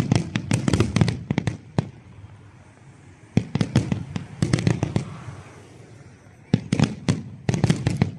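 Aerial firework shells bursting in a large display: rapid volleys of sharp bangs in three clusters, with short lulls between them.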